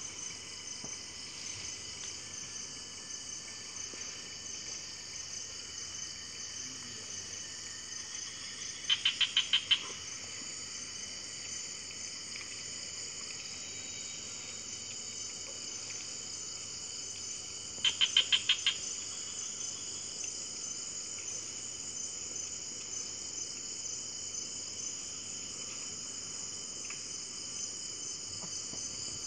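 Steady rainforest insect chorus, a continuous high-pitched buzzing with a fine rapid pulse. About nine seconds in, and again about nine seconds later, a short burst of quick chattering pulses, each under a second, stands out louder than the chorus.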